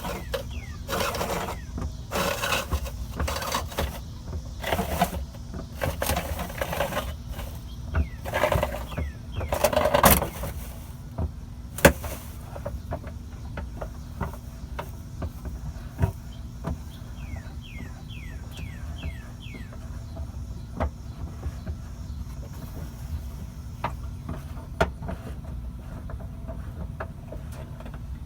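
Metal clicking, knocking and short squeaks from hand-cranking the minivan's under-floor spare tire winch to raise the spare into place. The clicks come thick and fast for the first dozen seconds, with one sharp knock, then thin out to an occasional click.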